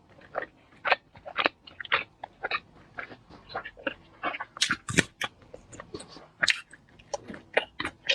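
A person biting into and chewing crunchy food, a quick irregular run of crisp crunches and wet mouth clicks, with louder bites about five and six and a half seconds in.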